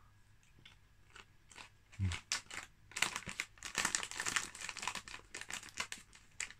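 Walkers Sriracha potato crisps crunching in the mouth as they are chewed, a quick run of crackly crunches beginning about two seconds in.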